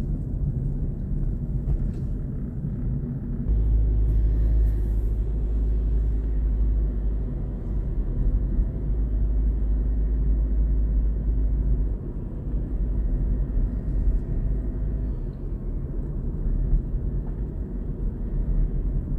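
Steady low rumble of road and engine noise inside a moving car's cabin, louder for several seconds from about three and a half seconds in.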